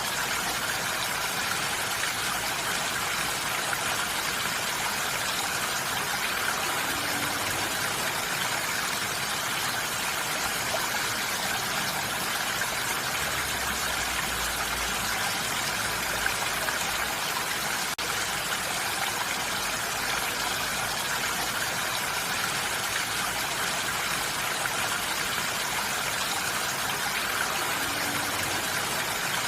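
Steady rain falling on a roof, an even hiss that holds unchanged.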